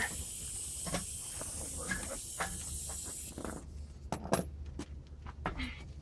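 A steady hiss that cuts off suddenly a little over three seconds in, with scattered light clicks and knocks of metal from hand work on a steel car wheel.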